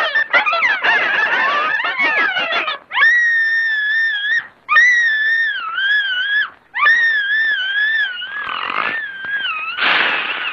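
Cartoon chickens squawking and cackling in alarm for about three seconds. Then a cartoon mouse screams in three or four long, high-pitched, wavering cries, with a rough noisy burst under the last one near the end.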